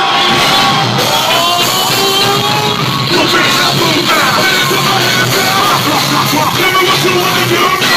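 Loud live concert music with vocals.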